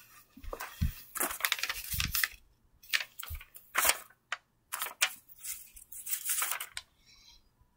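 Rustling and crinkling from handling a plush toy against a cardboard display box, in a string of short irregular bursts that stop about a second before the end.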